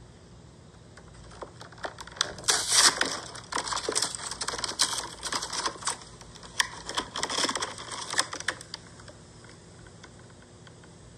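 Plastic blister packaging on toy-car cards crinkling and clicking as it is handled: a run of sharp clicks and crackles starting about a second and a half in and lasting about seven seconds.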